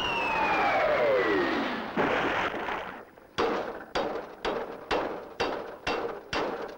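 A cartoon whistle sliding down in pitch, ending in a crash about two seconds in. Then a hammer striking a metal anvil about twice a second, seven blows, each ringing briefly.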